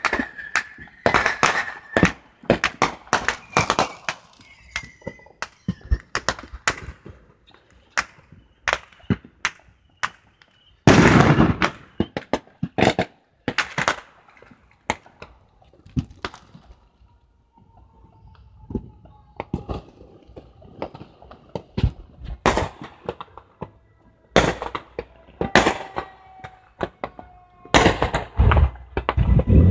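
Fireworks going off: rapid strings of sharp cracks and bangs in dense clusters, with a sparser lull past the middle.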